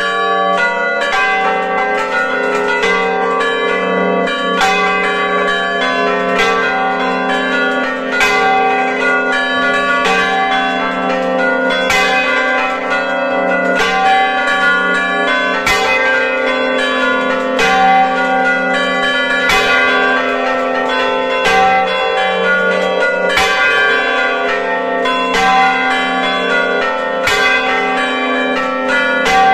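Church bells of a five-bell ring tuned in G, played as a 'grossa accompagnata': the largest bell swings and strikes loudly about every two seconds, while the smaller bells are struck in quicker patterns between its strokes.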